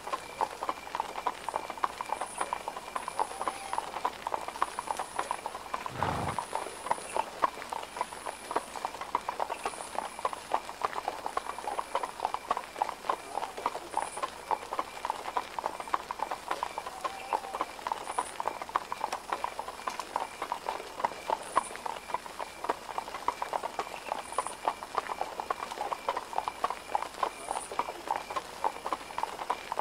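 Horse hooves clip-clopping steadily and without a break, many hoof falls close together, with a single low thud about six seconds in.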